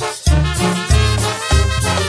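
Mexican banda de viento (wind band) playing: brass and wind instruments over low bass notes and a steady beat.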